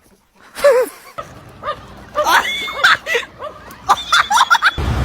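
A pet's voice: a series of short, wavering, rising-and-falling cries. Near the end it gives way abruptly to a steady noisy background.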